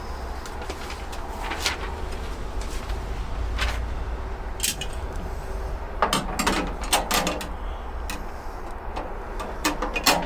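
Scattered clicks and knocks of metal parts and hardware being handled during tool cart assembly, busiest about six to seven and a half seconds in, over a steady low rumble.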